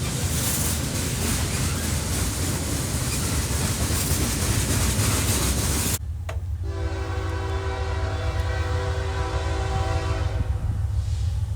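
A train's loud rolling noise with a deep engine rumble, which cuts off abruptly about halfway. A diesel locomotive's air horn is then held for about four seconds as a steady multi-note chord over the continuing engine rumble.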